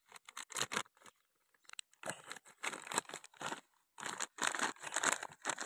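A thin clear plastic packet of new oil seals crinkling and tearing as it is pulled open by hand, in irregular rustling bursts that come thicker from about two seconds in.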